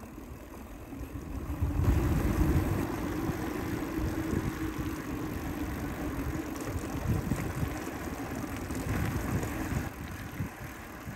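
Wind buffeting the microphone and tyres rolling over rough pavement as a bicycle coasts downhill, with a steady low hum that starts about two seconds in and fades near the end.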